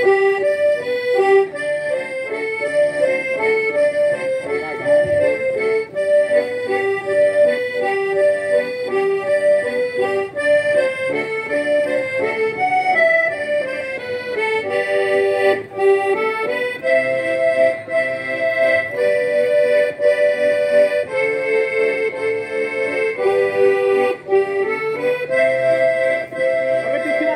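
Gaita ponto, the gaúcho diatonic button accordion, playing a lively traditional tune: a moving melody over held chords, with no break.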